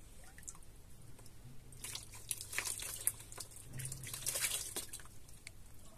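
Water splashing and dripping as a small child is washed by hand, in a run of short splashes from about two seconds in to about five seconds.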